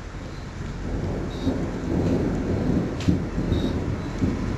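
Thunder rolling after a lightning flash: a deep rumble that swells about a second in and keeps rumbling, with a sharp crack about three seconds in.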